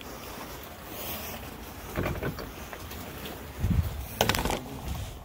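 Steady rushing background noise, with a few knocks and a clunk in the last second and a half as a glass-panelled shop door is pushed open and walked through.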